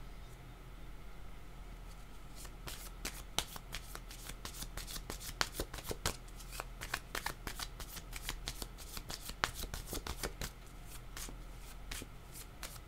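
A deck of oracle cards being shuffled by hand. After a quiet start, a quick irregular run of card snaps and riffles begins about two and a half seconds in and keeps going.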